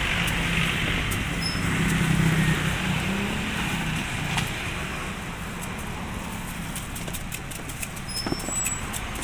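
Street traffic noise with a nearby motor vehicle engine running, a low hum that swells about two seconds in and then eases off. A few faint clicks sound over it.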